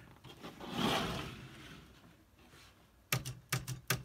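Smith Corona Corsair Deluxe portable typewriter being typed on: a quick run of sharp keystroke clicks, about three or four a second, starts about three seconds in, as the machine is tried out after a space bar repair. A soft rustling swell comes about a second in.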